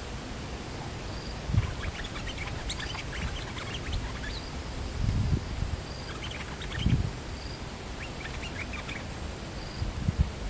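Bulbul giving three bursts of quick chattering calls. Behind it a short high note repeats about every second and a half, and there are a few dull low thumps.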